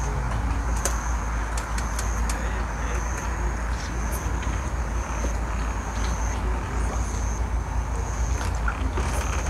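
Night ambience at a pond: an insect trilling high and thin in long phrases broken by short gaps, over a steady low rumble, with a few faint clicks.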